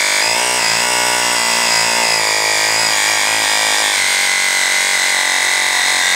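Small portable piston air compressor running, its motor and pump making a loud, steady mechanical drone with a brief dip in pitch about half a second in, then switched off abruptly at the end. It makes a lot of noise.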